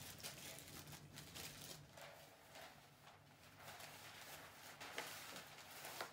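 Faint rustling and crinkling of wrapping paper being handled, in irregular bursts with a few sharper crackles.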